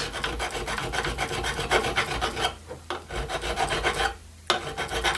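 Triangular file rasping on a metal rivet pin in quick back-and-forth strokes, using the file's rounded side to reach into the inside of the pin. The strokes pause briefly twice.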